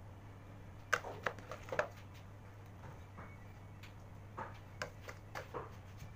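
Light clicks and taps of a metal palette knife against the cake board and metal turntable while whipped cream is spread and smoothed on a cake, in two short flurries, over a steady low hum.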